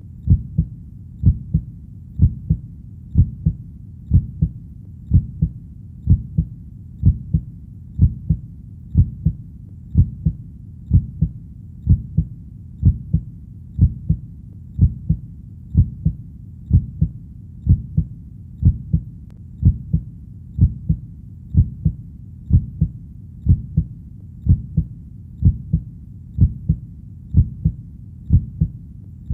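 Heartbeat beating steadily at about one beat a second. Each beat is a low double thump, lub-dub.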